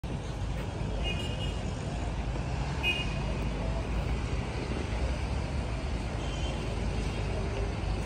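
Steady low outdoor background rumble, like distant traffic, with a few brief high chirps: one about a second in, one near three seconds and one a little after six seconds.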